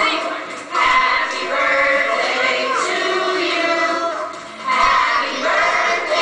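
A group of voices, children's among them, singing in phrases with brief pauses between lines, heard as playback through a computer's speakers.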